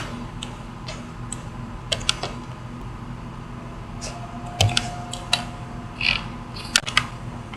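Scattered light clicks of a computer mouse at irregular intervals over a steady low electrical hum.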